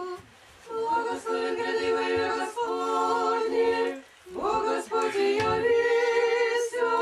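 A small choir singing Orthodox church chant a cappella, holding chords in phrases, with a short break near the start and another a little past the middle.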